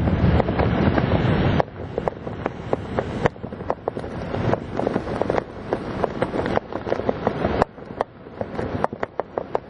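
Wind buffeting the camera microphone during a parachute descent under an open canopy: a heavy rumble that drops suddenly about a second and a half in, with many short crackling pops throughout.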